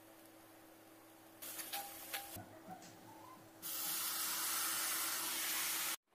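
A spoon clicks and scrapes in a cooking pan, then about three and a half seconds in a loud, steady sizzling hiss from the hot pan starts and cuts off suddenly near the end.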